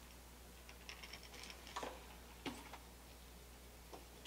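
Faint, scattered light clicks and taps from a painted fishing lure being handled in the hands, over a low steady hum.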